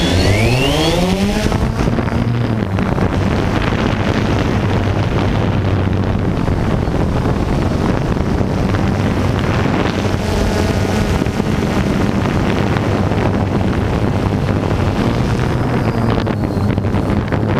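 Quadcopter drone's motors and propellers spinning up with a rising whine as it lifts off, then settling into a steady buzzing hum in flight.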